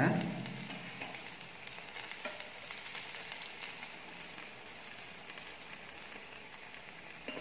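Potato cutlets shallow-frying in hot oil in a non-stick pan: a steady, fairly faint sizzle with a few small crackles.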